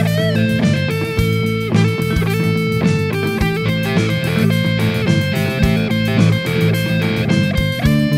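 Background music with electric guitar.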